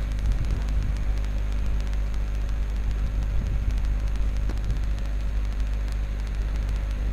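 Steady low rumble with a faint hiss: constant background noise with no speech.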